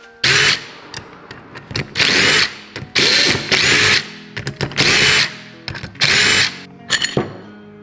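Cordless impact driver running in about five short bursts of half a second or so, backing bolts out of an aluminium engine oil pump housing.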